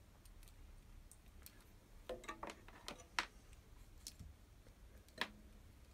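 Faint scattered clicks and light ticks as alligator test clips are unclipped from the metal terminals of a car blower fan's control board. The clearest clicks come at about two, three and five seconds in.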